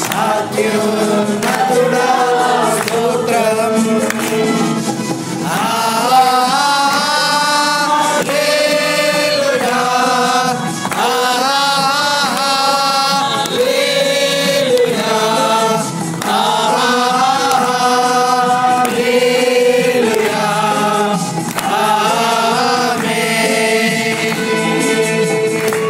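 Telugu Christian worship song: voices singing with instrumental accompaniment.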